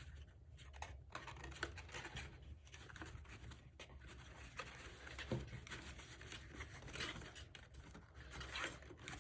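Faint rustling, scratching and light taps of cardstock pieces and flaps being handled and pressed together while being glued, in scattered small strokes.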